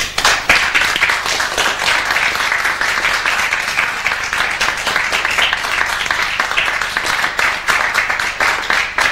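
Audience applauding: many hands clapping together, starting abruptly and holding steady.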